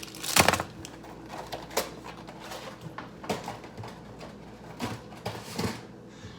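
Scattered light clicks, taps and rustling of small objects being handled, at irregular intervals, the loudest about half a second in.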